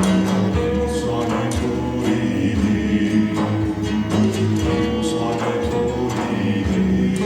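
Music of voices singing or chanting over held tones, with percussive strikes recurring at uneven intervals.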